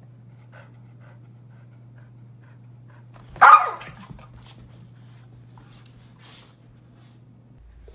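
A dog gives one loud, short bark about three and a half seconds in while play fighting with a kitten, with faint scuffles around it and a steady low hum behind.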